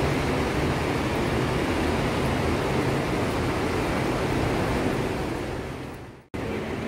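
Steady rumble and hiss of a transport terminal's ambience, with a low rolling undertone. It fades away about six seconds in, breaks off, and a quieter steady background follows.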